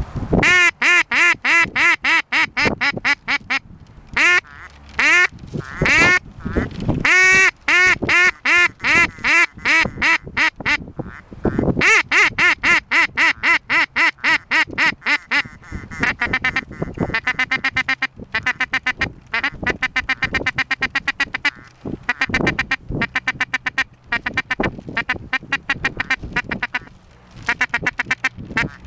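Ducks quacking: runs of loud, drawn-out quacks, then from about halfway a faster chatter of short quacks.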